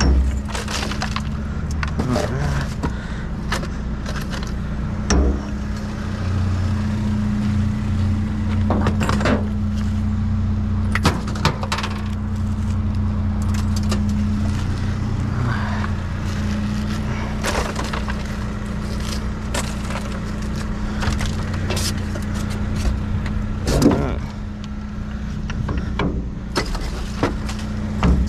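A vehicle engine idling with a steady hum, under frequent clinks and rattles of small metal pieces being handled, with louder clatters about eleven and twenty-four seconds in.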